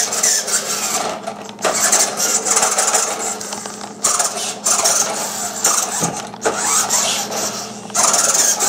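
Electric drive motor and gears of a vintage Radio Shack Tormentor RC monster truck whining as it drives in low range, cutting out and starting again several times.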